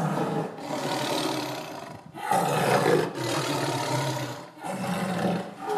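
Tiger roaring: three long, rough roars one after another.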